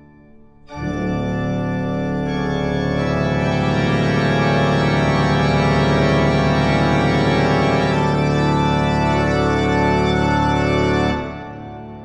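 Background music: a held organ chord that comes in under a second in, sustains steadily, and dies away near the end.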